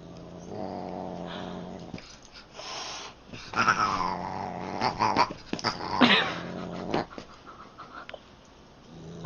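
Siamese cat growling and yowling as it spars with a dog: a low rough growl early on, then drawn-out wavering cries that fall in pitch, about four and six seconds in.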